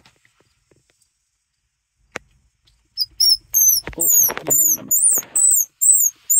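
Homemade squirrel call blown in a fast run of high, squealing chirps, about three a second, starting about three seconds in, used to lure squirrels. A couple of faint clicks come before it.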